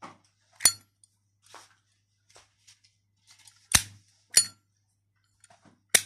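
Four sharp metallic clicks, each with a brief ring, and faint rustling between them as a chrome Zippo windproof lighter is handled in the hand.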